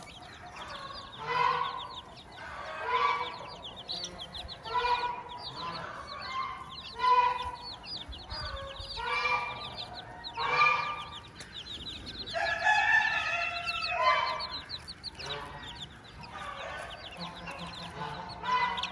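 Mother hen clucking, her calls repeating about every one and a half seconds, with her chicks peeping over them in a steady stream of high, falling cheeps. There is one longer, drawn-out call about twelve seconds in.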